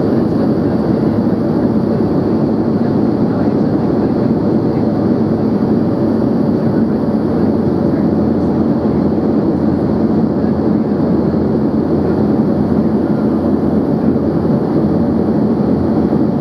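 Steady cabin noise inside an Embraer ERJ-145XR regional jet on approach: a constant rush of airflow mixed with the drone of its rear-mounted Rolls-Royce AE 3007 turbofans, heard through the cabin. The level stays even throughout.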